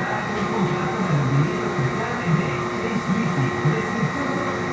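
A steady mechanical hum with a few constant tones in it, and a low voice-like murmur underneath.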